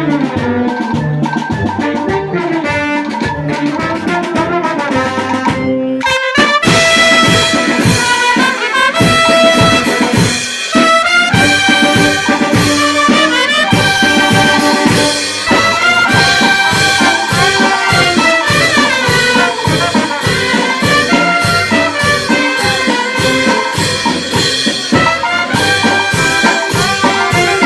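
Brass band playing a pasodoble. A softer passage over a steady beat gives way about six seconds in to the full band, louder, with bright brass over a fast, even beat.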